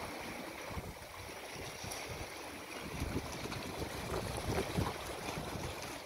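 Small sea waves lapping and sloshing against shoreline rocks over a steady wash of water noise, with a few louder swashes in the second half.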